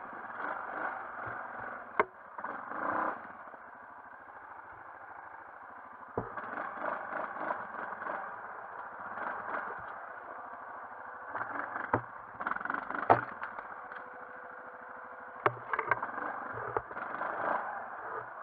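Yamaha Grizzly 450 ATV's single-cylinder engine running at low speed and swelling in short bursts of throttle as the quad crawls through thick brush. Sharp knocks and scrapes from the machine hitting branches and bumps break in about five times, the loudest about two-thirds of the way through.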